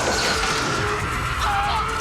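Film score music with long held notes, over a dense mix of action sound effects.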